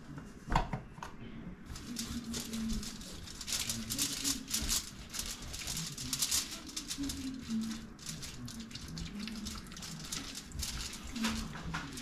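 Hands rubbing seasoning into the skin of a raw suckling pig, with crackly rustling from the plastic bag and foil it lies on. A single knock about half a second in.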